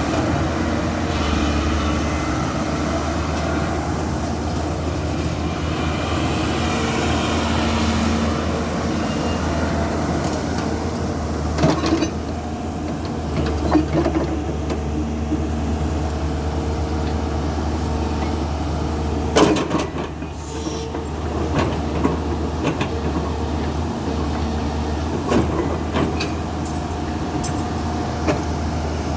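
Hyundai hydraulic excavator running: a steady diesel engine hum, with a whine that rises and falls as it comes and goes. Several sharp metallic knocks; the loudest comes about two-thirds of the way through.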